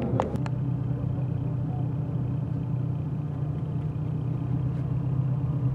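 Steady low vehicle rumble heard from inside a car's cabin, after a few sharp clicks in the first half second.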